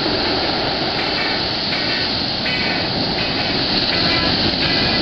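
Steady roar of breaking surf and whitewater washing over a boulder beach, with faint short music notes repeating under it about every three-quarters of a second.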